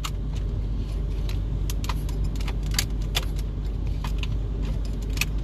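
Metal radio removal keys clicking and scraping as they are worked into the head unit's release slots, in irregular sharp clicks. A steady low hum runs underneath.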